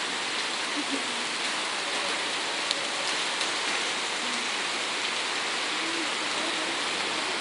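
Storm rain pouring steadily onto a flooded street, a constant even hiss of drops hitting standing water.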